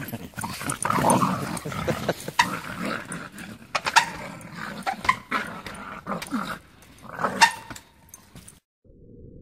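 Two dogs whining and yipping as they play, with sharp knocks of a trials bike's tyres landing on rock. The sound cuts off suddenly near the end, leaving a faint low hum.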